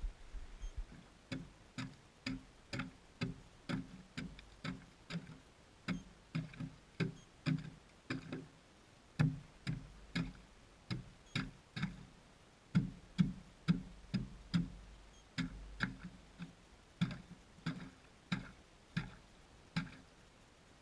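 Background music: a plucked guitar picking single low notes, about two a second.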